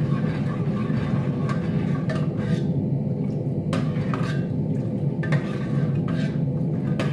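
A spoon stirring and scraping in an aluminium pot of just-boiling ground-beef sauce, with a few irregular clinks against the metal. A steady low hum runs underneath.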